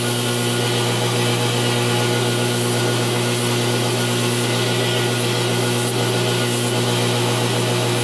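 2x72 belt grinder running steadily, its motor hum and belt hiss unbroken, while a pocket-knife blade is worked against the belt.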